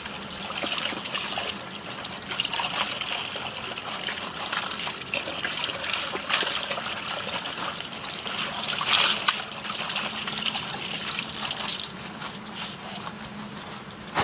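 Water trickling, with a brief louder moment about two-thirds of the way through.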